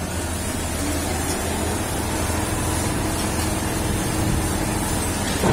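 Diesel engine of a SANY truck-mounted crane running steadily under load as it hoists a toppled rotary drilling rig upright.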